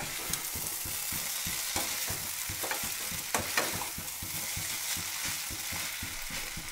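Vegetable hakka noodles sizzling in a kadai while a spatula tosses and scrapes through them: a steady frying hiss with quick, uneven stirring strokes and a couple of sharper knocks about halfway through.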